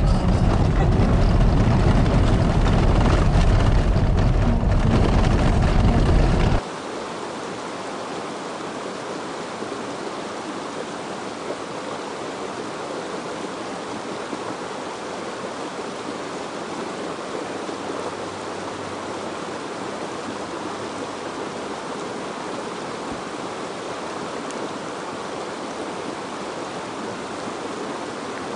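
A loud, low rumble cuts off suddenly about six and a half seconds in. After that comes the steady rush of a mountain stream.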